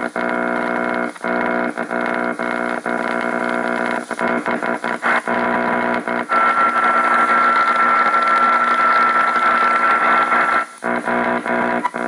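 AM radio tuned off-station: a steady buzz of interference with many overtones, broken by short dropouts. From about six seconds in a louder hiss with a steady high whistle takes over, then cuts back to the buzz near eleven seconds.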